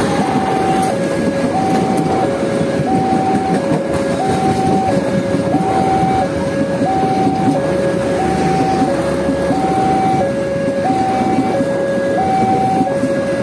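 Passenger train coaches rolling past close by, a steady rumble of wheels on rail. Over it, an electronic two-tone warning signal alternates evenly between a higher and a lower note, typical of a railway level-crossing alarm.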